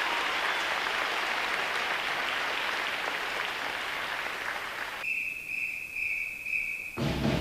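Audience applause in a large hall, which cuts off abruptly about five seconds in. A single steady high whistle-like tone, pulsing about twice a second, follows for about two seconds. Then music starts near the end.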